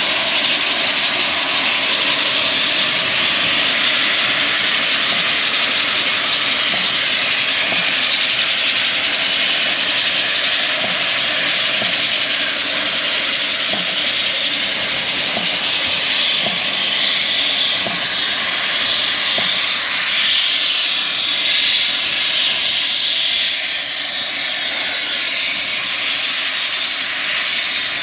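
Loud, steady rushing of wind across the microphone, easing a little near the end.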